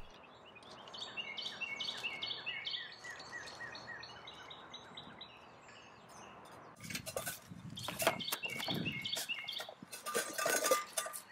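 Birds chirping in a rapid series of short notes, then, from about seven seconds in, footsteps crunching on dry pine needles and leaf litter while the birds carry on.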